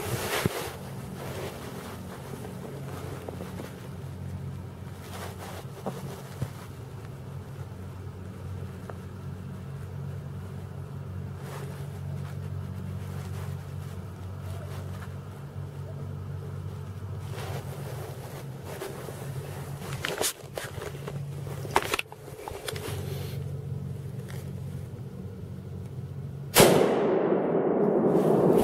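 Steady low hum with a few faint clicks and knocks. Near the end comes a sudden loud bang, then about two seconds of loud rushing and rubbing as the handheld camera is jerked around.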